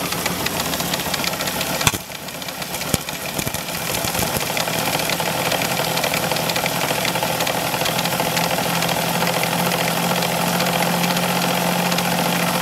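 3D-printed Pelton water turbine and its belt-driven generator running under jets from two garden hoses: a steady mechanical hum over a constant hiss and splash of water spray. A couple of sharp clicks come around two and three seconds in, and the hum grows stronger as the turbine takes up the flow from the newly opened second hose.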